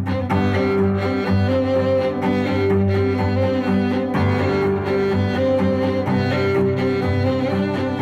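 Background music led by bowed strings, with long held notes.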